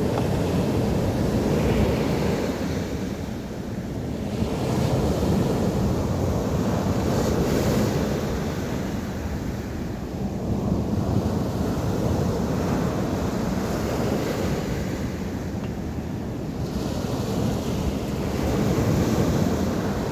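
Sea waves surging and breaking on the shore, the rush swelling and easing every few seconds, with wind buffeting the microphone.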